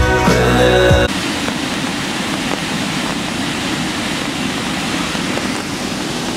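Background music stops abruptly about a second in. A steady, loud rush from a large waterfall, Blackwater Falls, follows.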